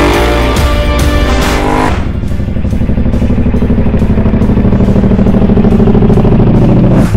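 KTM Duke 990's V-twin revving hard through its custom exhaust for about the first two seconds, over electronic music. The engine then falls back, and a low, steady pulsing beat carries on.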